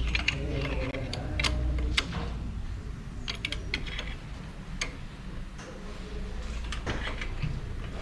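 Irregular sharp clicks and taps, about a dozen, over a low steady rumble.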